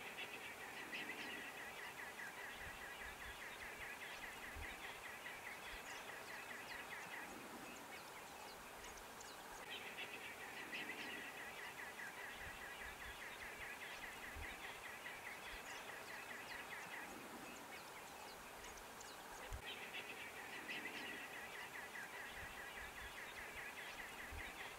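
Faint bush ambience: a rapid chirring trill, high and finely pulsed, repeats in three long bouts of several seconds each over a faint steady hiss.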